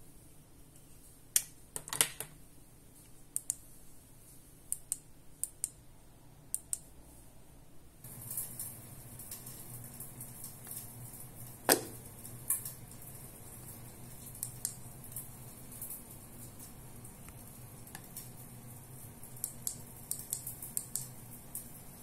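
Light clicks and taps from handling a small plastic keychain COB flashlight and its USB charging cable, then a sharp clack as the flashlight's magnetic back snaps onto a steel fridge door, with a few lighter clicks near the end.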